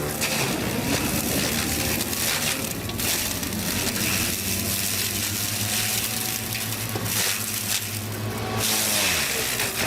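Diesel engine of a heavy wood-working machine running steadily under load while wood is cut and crushed, with a noisy cracking layer over the engine tone. Near the end the engine pitch drops.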